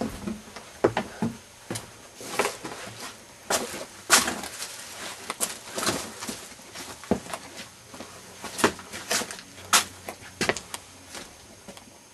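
An irregular series of knocks and clatters, a dozen or more sharp hits spread over several seconds, that die away near the end.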